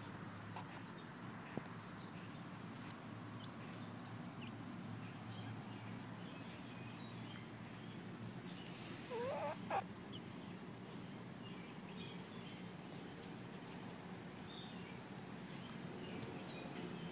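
Backyard ambience: a steady low hum with scattered faint bird chirps, and one short warbling bird call about nine seconds in, the loudest sound.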